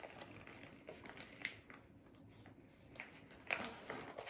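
Faint rustling and scattered light clicks of paper and plastic packaging being handled, with a sharper click about three and a half seconds in.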